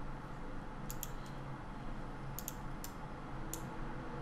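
Computer mouse clicking: about six short, sharp clicks, a couple of them in quick pairs, over a steady low hum.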